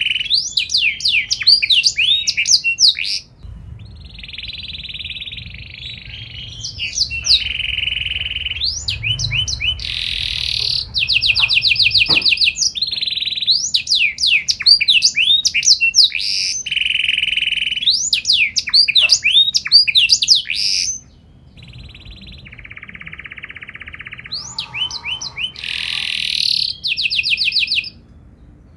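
Domestic canary singing a long, fast song: rapid trills alternating with steady rolling notes. The song grows quieter for a few seconds about three seconds in, and again about two-thirds of the way through.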